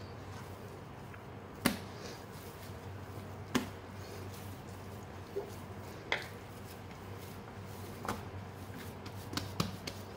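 Risen yeast bread dough being kneaded and knocked back by oiled hands on a wooden board: a soft slap about every two seconds as the dough is folded and pressed down, then a few quicker, lighter pats near the end as it is shaped smooth. A steady low hum runs underneath.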